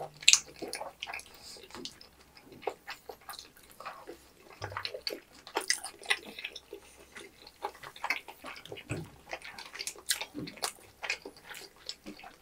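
Close-miked chewing of tteokbokki and fried snacks in sticky red sauce: irregular wet smacks and clicks of mouths eating.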